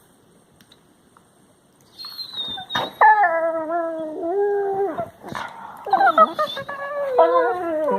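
Labrador retriever puppy whining and howling, starting about two seconds in: a thin high whine, then long drawn-out howls that waver and bend in pitch.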